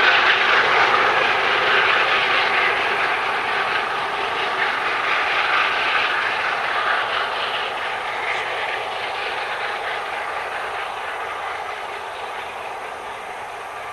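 Steam-hauled passenger train behind locomotive 60163 Tornado passing at speed: a steady rushing noise of wheels and coaches on the rails that fades gradually as the train draws away.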